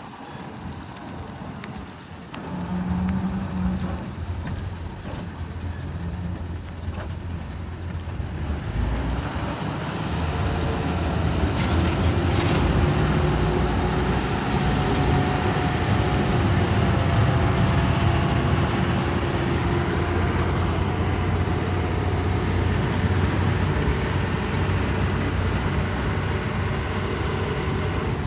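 A harvesting machine's engine running, with a steady drone that grows louder about eight to ten seconds in and then holds.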